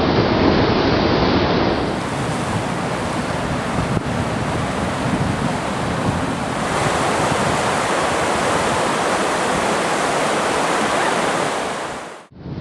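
Whitewater rapids rushing steadily, with some wind buffeting the microphone. The sound shifts in character about two seconds in and again midway through, then fades out just before the end.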